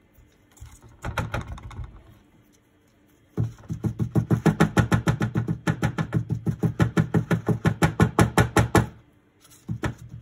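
A plastic dental impression tray, freshly filled with plaster, knocked rapidly against a paper-covered worktop to settle the plaster into the impression: a few knocks about a second in, then a fast, even run of about five knocks a second for some five seconds.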